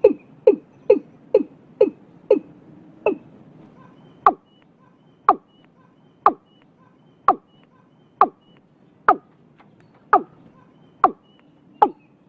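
Watercock (cúm núm) calling: a series of short, sharply falling notes, about two a second at first, slowing to about one a second after the first two seconds.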